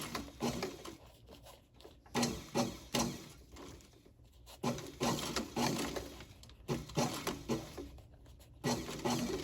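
Sewing machine stitching leather in short runs of one to two seconds, stopping and starting about five times.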